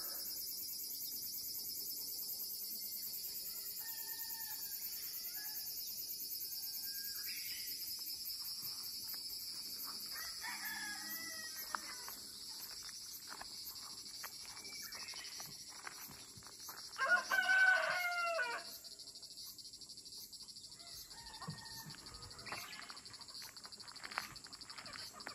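A rooster crows once, loud and pitched, about 17 seconds in, with a few shorter, fainter bird calls before it. Throughout, a steady high-pitched pulsing drone of insects in the summer trees carries on, fading about halfway through.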